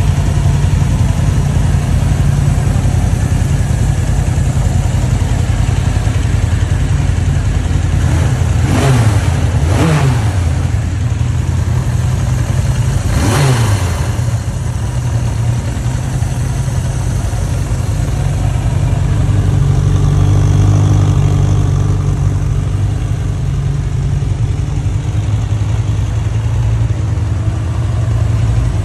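A Suzuki GSX1100 Katana's air-cooled inline-four engine idling steadily, blipped twice (about a third of the way in and again about halfway), the revs rising and falling back to idle.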